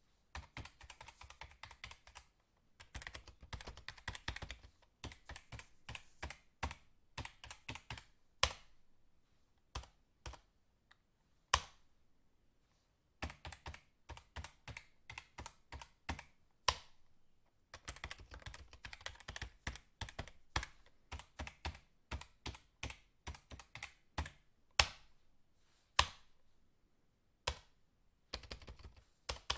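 Fast typing on a computer keyboard: runs of rapid keystrokes broken by short pauses, with an occasional single louder key strike.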